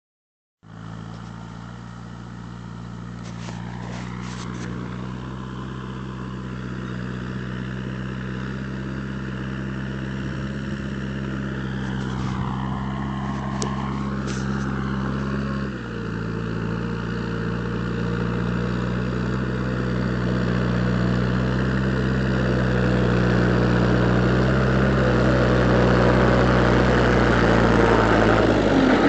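New Holland TT75 tractor's diesel engine running steadily at an even pitch while pulling a plough, growing gradually louder as it comes closer, with a brief dip about two-thirds of the way through.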